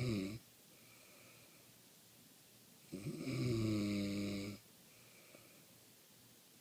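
A man snoring heavily while asleep: one snore tails off in the first half-second, and another long, buzzing snore comes about three seconds in and lasts under two seconds, with quiet breathing between them.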